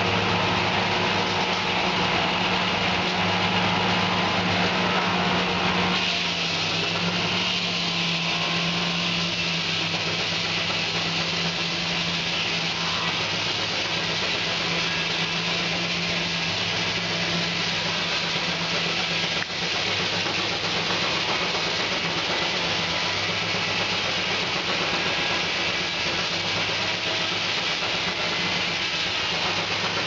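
Sawmill driven by a Keck-Gonnerman steam traction engine, running steadily with a hum and a lower tone that comes and goes every second or two. About six seconds in, the hum drops slightly in pitch and stays there.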